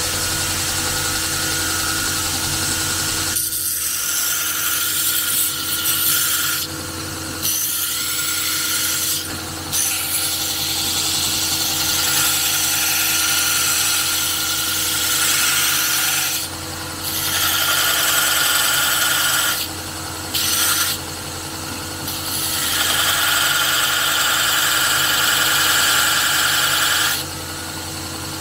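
Electric grinder running steadily while steel is ground on it, the harsh grinding hiss dropping off and coming back several times as the workpiece is lifted away and pressed on again.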